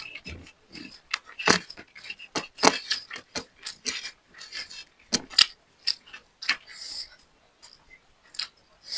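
Close-miked eating sounds: a person chewing a mouthful of fried rice, with irregular wet smacks and clicks several times a second.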